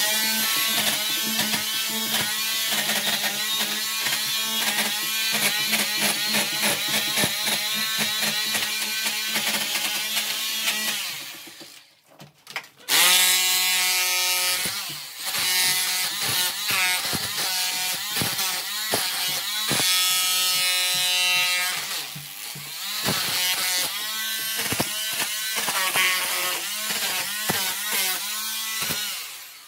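Corded electric rotary hammer with a chisel bit running in hammer mode, chipping old plaster off a brick wall with a steady, rapid hammering. It stops about twelve seconds in and starts again a second later.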